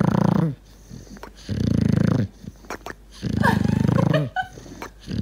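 Dog snoring loudly in its sleep: three long snores, each under a second, about a second and a half apart.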